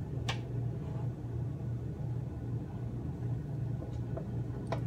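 A steady low hum in a kitchen, with a sharp clink of a utensil against a steel saucepan about a third of a second in and another near the end.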